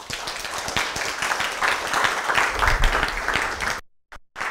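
Audience applauding, a dense patter of many hands clapping, broken by a brief dropout of all sound near the end.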